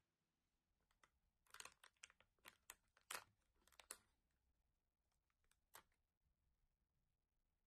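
Quiet crinkling and tearing of a thin foil-and-paper seal being peeled off a plastic Kinder Joy egg tray: a quick run of sharp crackles, then one more near the end.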